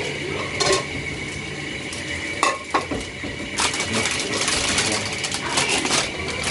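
Plastic instant-noodle packets and seasoning sachets crinkling and rustling as they are handled and set on a plate. There is a sharp click about two and a half seconds in, and a denser run of crinkling in the second half.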